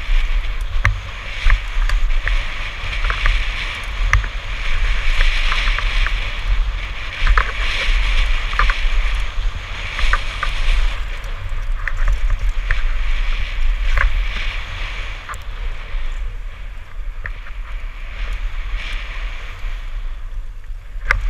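Mountain bike descending fast on a loose dirt and gravel trail: wind buffeting the helmet-mounted action camera's microphone with a steady low rumble, tyres hissing and crunching over the gravel, and frequent sharp clicks and knocks from the bike over bumps. It eases a little in the last few seconds.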